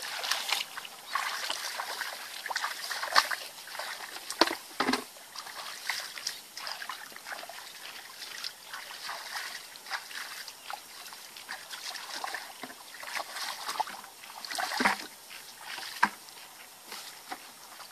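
Bare feet squelching and splashing through shallow muddy water, in an irregular run of wet steps with a few sharper splashes.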